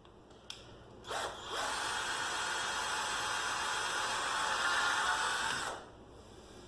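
Hyper Tough 18-volt cordless drill driving a screw into a wooden chair: a click, a short blip of the motor, then about four seconds of steady running that spins up at the start and stops suddenly near the end.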